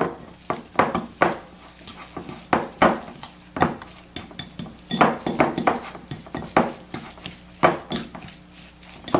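Metal fork clinking and scraping against a glass mixing bowl in uneven strokes, about one or two a second, as minced chicken is stirred together with its seasoning.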